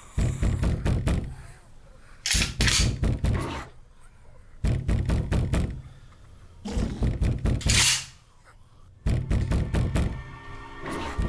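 Heavy thudding in five bouts of about a second each, every bout a fast run of blows, with quieter gaps between. A shrill high noise cuts in twice.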